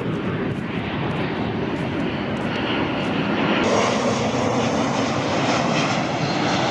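Airliner passing overhead: a steady rumbling roar that grows a little louder partway through.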